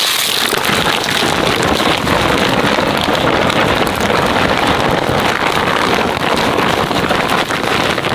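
Cloth bag rustling as green sour ear fruits are tipped out of it and tumble into a woven bamboo basket: a loud, dense rustle with many small knocks throughout.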